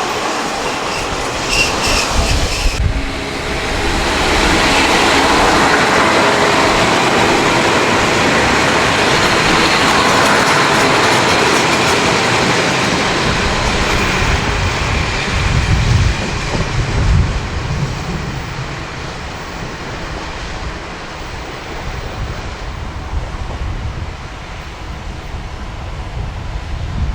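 Kashima Rinkai Railway diesel railcar running along the elevated line, its rumble and wheel clatter swelling about three seconds in, staying loud for about twelve seconds, then easing off. Wind buffets the microphone in gusts in the later part.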